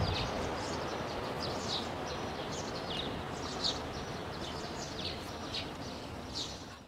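Small birds chirping, many short high calls that slide downward, over a steady outdoor rush of noise.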